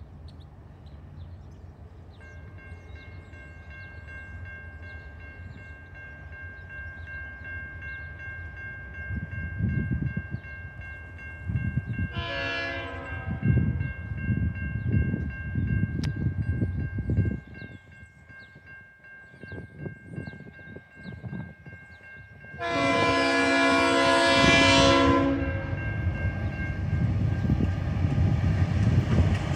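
Diesel-hauled coal train approaching a level crossing. The lead DQ class locomotive sounds its horn twice: a short blast about twelve seconds in and a longer, louder one of nearly three seconds later on. Under the horn, the crossing's warning bells ring steadily from about two seconds in, and the diesel engines rumble louder as the train nears.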